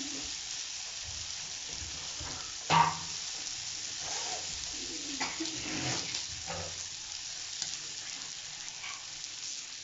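Masala-coated fish shallow-frying in oil in a pan, a steady sizzle. A utensil knocks sharply against the pan about three seconds in, with a few lighter scrapes and clinks a little later.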